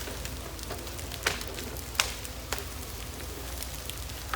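A heavy machine's engine running steadily at low revs, with three sharp cracks over it.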